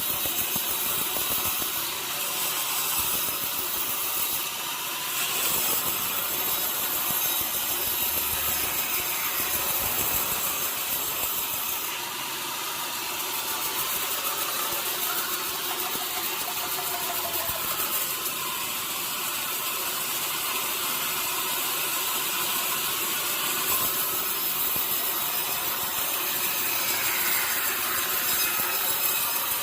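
Sawmill saw cutting through a mahogany log, a steady, continuous noise with faint changes in pitch.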